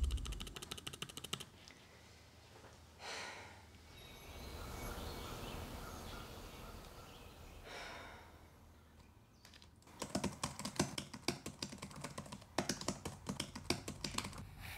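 Typing on a computer keyboard: a short run of quick keystrokes, a pause of several seconds, then a longer run of rapid typing over the last few seconds.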